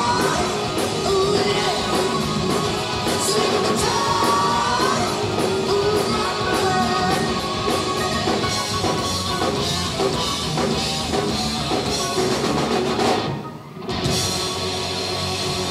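Live hard rock band playing loud: a male lead singer over distorted electric guitars, bass and a drum kit. The sound drops out sharply for a moment about 13 seconds in, then carries on quieter and steadier.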